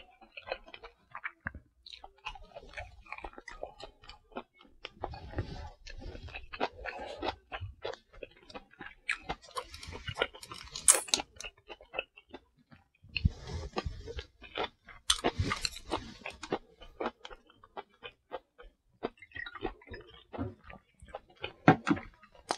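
Close-miked eating sounds: wet chewing and lip smacking of ramen noodles, spicy stir-fried pork and kimchi, as an irregular run of small clicks, with louder, hissier stretches about halfway through.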